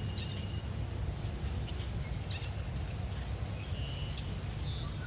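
Outdoor morning ambience: scattered short, high bird chirps over a steady low rumble.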